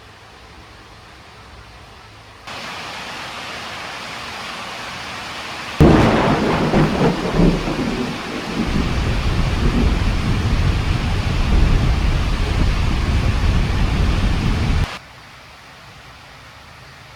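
Thunderstorm: a hiss of heavy rain starts suddenly, then a loud thunderclap cracks about six seconds in and rolls on as a long deep rumble with the rain. Rain and thunder cut off together abruptly near the end.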